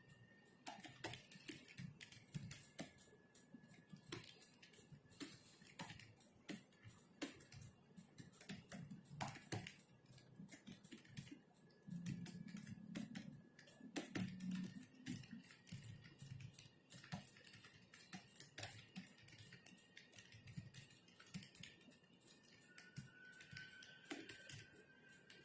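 Typing on a computer keyboard: faint, irregular keystroke clicks in quick runs, with short pauses between them.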